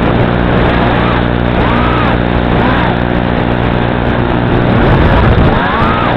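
Brushless motors and propellers of an FPV quadcopter on a 240 mm CNC frame with Flycolor 30 A ESCs, buzzing in flight, with a whine that rises and falls several times as the throttle is punched and eased.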